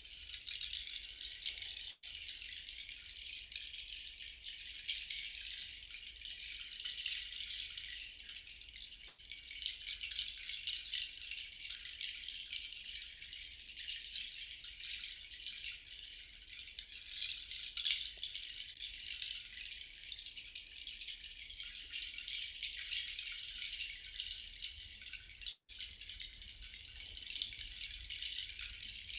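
A handheld rattle shaken continuously in a sound-healing session, a steady dense shimmer of small grains with no pitch, cutting out briefly twice.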